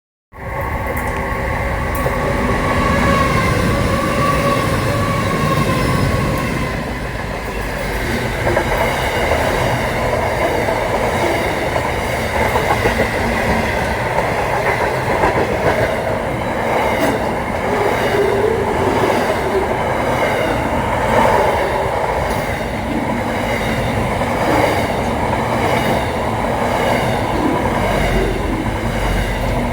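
Freight train rolling past in a steady, loud rumble, its wheels clacking in a regular rhythm over the rail joints. During the first several seconds a droning tone slowly drops in pitch.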